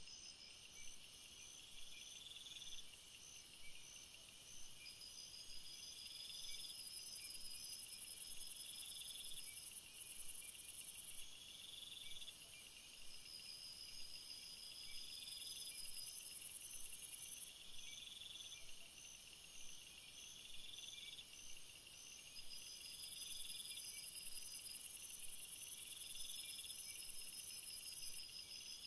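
Insects chirping faintly in short, repeated high trills, with a higher steady buzz that swells in for a few seconds three times.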